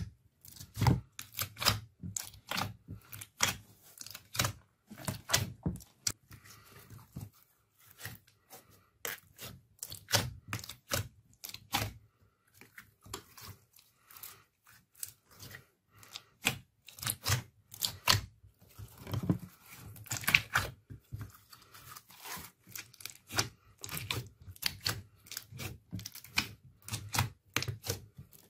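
Hands squishing, stretching and pressing glossy slime in a glass dish, making irregular wet clicks, pops and crackles, often several a second, with short lulls.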